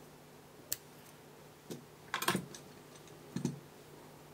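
A few light clicks and taps of fly-tying tools being handled at the vise, four short knocks spread over a few seconds with a faint steady hum beneath.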